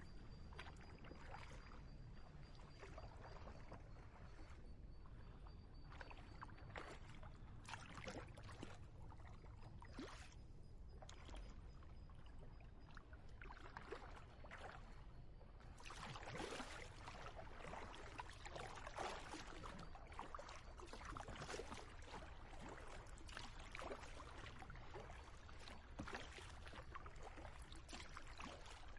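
Kayak paddle strokes dipping and splashing in the water, with drips, louder from about halfway through.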